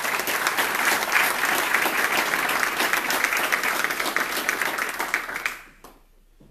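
Applause: many people clapping together, dying away about five and a half seconds in.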